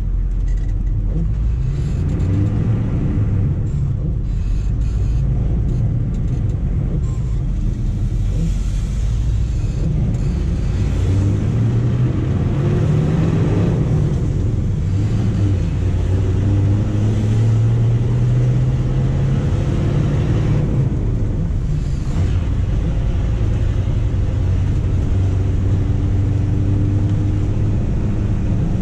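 The 6.2-litre Detroit Diesel V8 of a 1985 GMC 3500, heard from inside the cab while driving. The engine note climbs and drops back a few times as the truck pulls through the gears, over steady road noise.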